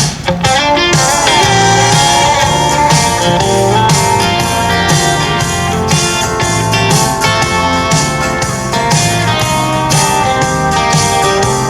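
Country song with guitar, played through a Harley-Davidson Street Glide's stereo speakers at 30 of 50 volume.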